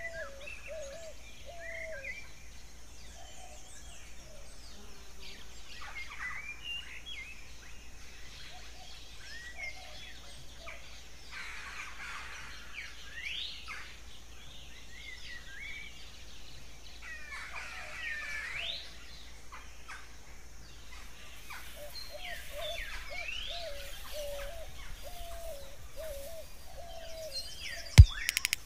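Birds singing and calling: scattered high chirps and rising whistled notes, with runs of lower, quickly repeated warbling calls at the start and again near the end. A single loud, sharp click comes just before the end.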